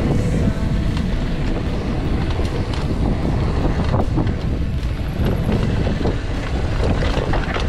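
Mountain bike riding down a dirt trail: tyres rolling over the ground with scattered knocks and rattles from the bike, under heavy wind buffeting on the microphone.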